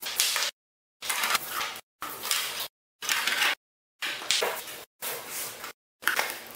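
Rustling of plastic packaging and light plastic knocks as bullet security cameras are unwrapped and set down. It comes in about seven short bursts roughly a second apart, each cut off abruptly by dead silence.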